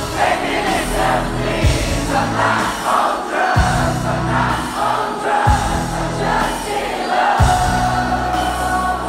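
Live pop concert heard from within the audience: a woman singing into a microphone over the band, with deep bass notes that change every couple of seconds and many voices singing along.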